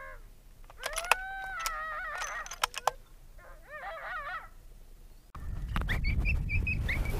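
Drawn-out howling calls that rise and bend in pitch, of the coyote kind, with a few sharp clicks among them. About five seconds in they break off, and wind noise on the microphone starts, with quick short high yips or chirps.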